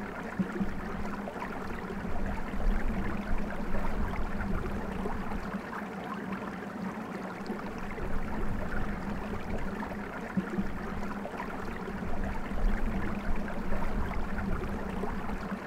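Small hillside stream running and trickling over stones in its channel, a steady rush of water, with an uneven low rumble and a steady low hum underneath.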